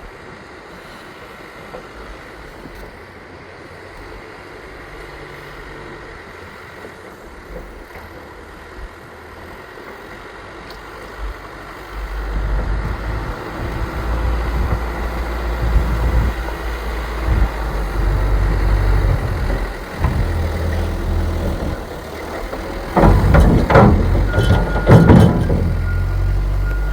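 Diesel engines of backhoe loaders plowing snow, running low and fairly faint at first, then much louder about twelve seconds in as a machine works close by. Near the end comes a run of loud clattering knocks, followed by a steady high beeping tone.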